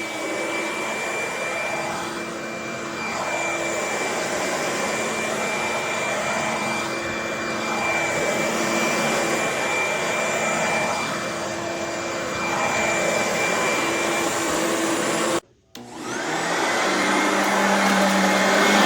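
Kenmore BU1001 bagged upright vacuum running steadily with a high whine. About fifteen seconds in, the sound cuts out for a moment. The motor then spins back up with a rising whine and runs a little louder.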